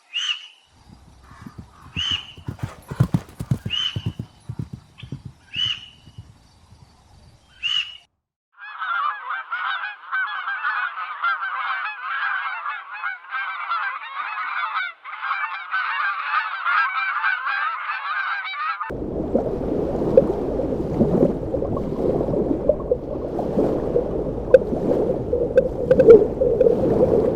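Domestic geese calling. First there are single short honks about every two seconds with a few knocks. Then comes a dense chorus of many honking birds. Near the end it turns into a lower, thicker flock noise.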